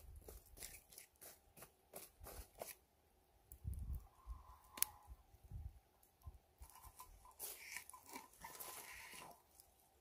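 Wood embers crunching and crackling as a gloved hand presses and spreads them flat. In the second half, a steel frying pan is set down on the coals with a click and a scrape.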